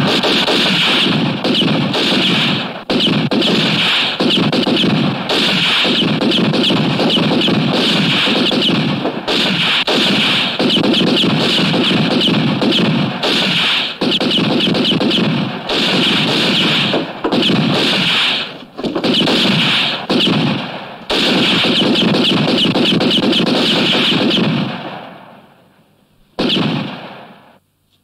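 Rapid gunfire from a western's soundtrack, in long volleys of shots broken by brief pauses, mixed with music. It dies away near the end, with one short last burst.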